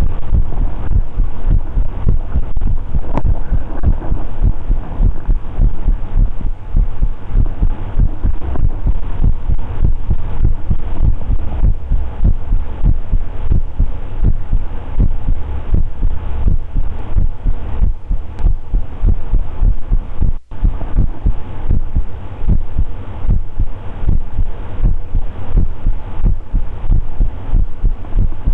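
A man's heartbeat: a steady run of low beats, with a brief dropout about two-thirds of the way through.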